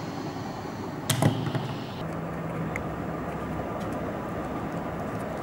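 A paper pop-up robot toy being handled: a sharp tap about a second in with a short low thud, then a few faint small clicks, over a steady background hiss.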